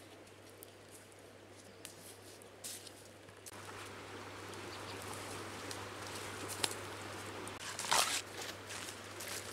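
Banana leaves and a stick being handled over loose soil: soft rustling and scraping with small clicks, and one loud, brief rustle of a banana leaf about eight seconds in.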